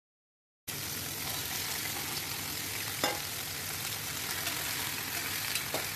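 Paneer and vegetables sizzling in butter in a nonstick frying pan, starting suddenly just under a second in, with a couple of light clicks of a steel spoon against the pan.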